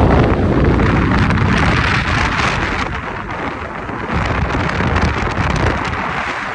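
Wind buffeting the microphone: a loud, choppy low rumble under a steady hiss, easing a little after about three seconds.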